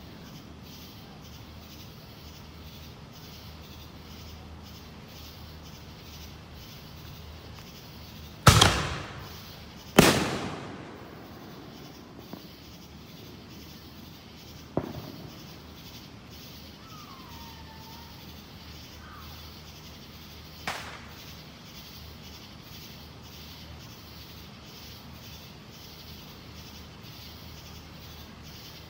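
Fireworks bangs: two loud bangs about a second and a half apart, each echoing away. Two fainter cracks follow several seconds later.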